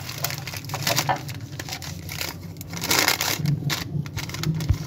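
Paper wrapper rustling and crinkling in irregular bursts as a rolled shawarma is wrapped in it by hand.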